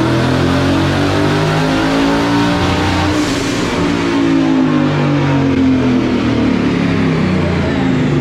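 Twin-turbocharged Ford Coyote 5.0 V8 of a Mustang GT running hard on a chassis dyno. Its pitch climbs a little to about three seconds in, where a short hiss comes in, then falls steadily as the engine and a high whine wind down.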